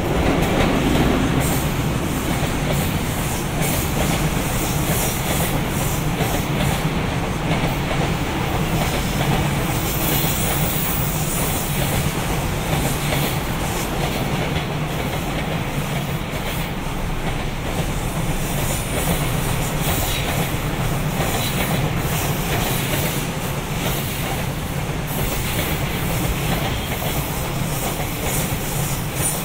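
A freight train of wagons rolling steadily past on the line, wheels clacking over the rail joints.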